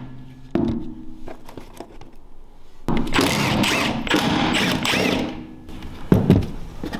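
Milwaukee M12 Fuel compact cordless impact tool backing out bolts. It spins briefly about half a second in, then runs a longer stretch of rapid hammering from about three seconds in, followed by a couple of knocks near the end.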